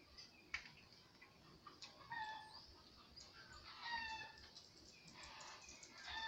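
Chickens calling in the background: three short calls, one every couple of seconds, with small clicks of eating close by.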